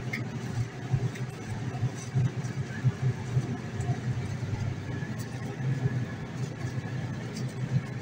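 Steady low hum and uneven rumble inside an enclosed Ferris wheel gondola during the ride, with a few faint clicks.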